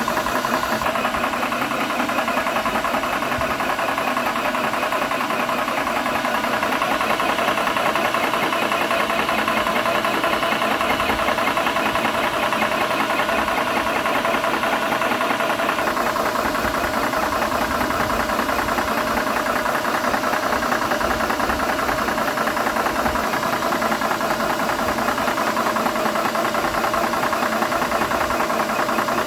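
Airmax high-pressure PCP air compressor running steadily with its cooling fan, a fast even pulsing of the pump as it fills a PCP air rifle.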